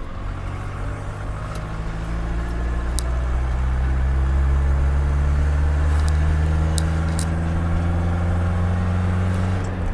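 Van engine and road noise heard inside the cab while driving, with a steady engine note that grows a little louder a few seconds in. A few faint ticks sound on top.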